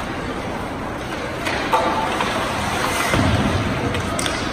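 Ice hockey rink sounds during play: a steady wash of arena noise with sharp knocks of sticks, puck or boards, a pair about one and a half seconds in and another near the end.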